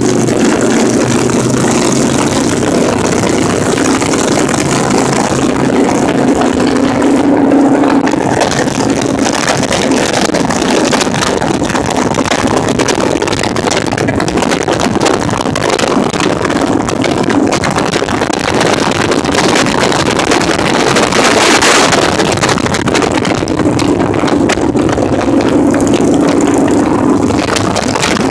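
Cruiser motorcycle riding at road speed: a steady engine hum under a loud, continuous rush of wind and road noise on the microphone.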